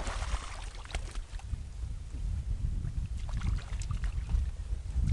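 Wind buffeting the microphone: a low, gusting rumble, with a few faint clicks.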